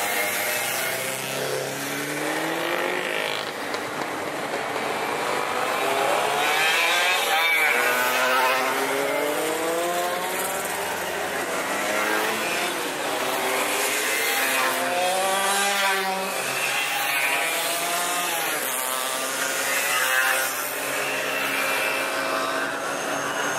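Classic two-stroke mopeds and small motorcycles riding past one after another. Their engines rev up and drop in pitch as each goes by, in overlapping rising and falling tones.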